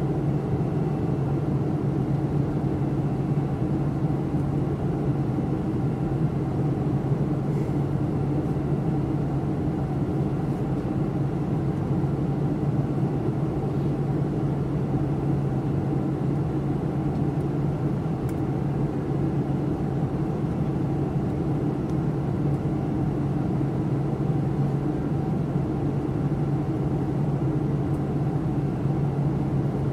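Steady cabin drone of a commercial passenger airliner in flight, heard from inside the cabin, with a low hum running under it at an even level throughout.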